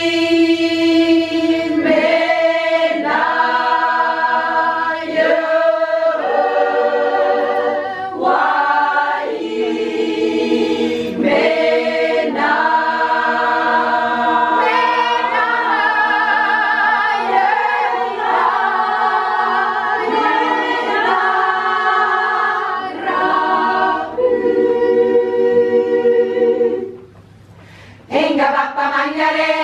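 Women's choir singing unaccompanied, performing a song of the indigenous women of the Amazon. Near the end the singing breaks off briefly and then starts again.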